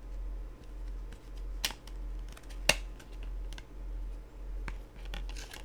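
Handling noise from a Blu-ray steelbook case being opened and handled: scattered small clicks and taps, two sharp clicks about one and a half and two and a half seconds in, and light rustling near the end. A low hum pulsing about twice a second runs underneath.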